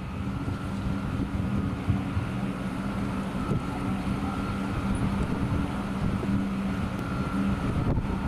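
A warship's machinery running with a steady low hum and a fainter high steady whine, with wind buffeting the microphone on the open deck.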